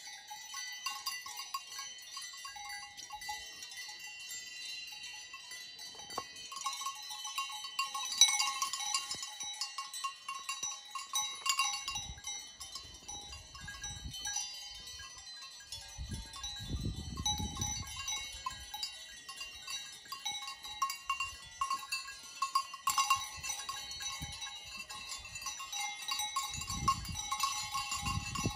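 Several livestock bells clanking and ringing irregularly as grazing animals move, the tones overlapping. A low rumble comes in about sixteen seconds in and again near the end.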